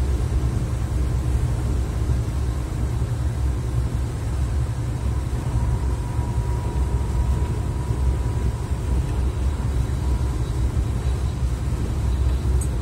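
Steady low rumble of engine and tyre noise inside a heavy vehicle's cab cruising on a wet motorway.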